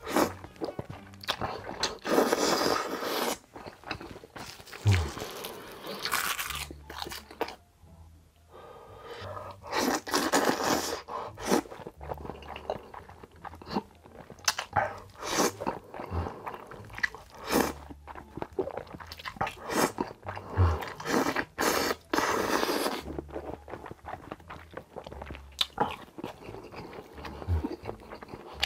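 Close-miked eating sounds of a person slurping in long mouthfuls of noodles and chewing, with a series of long slurps and many small wet clicks of the mouth, over soft background music.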